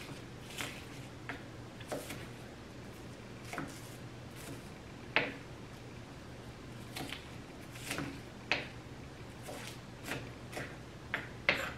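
Kitchen knife cutting an onion on a cutting board: single knocks at uneven, unhurried spacing, one every half second to a second and a half.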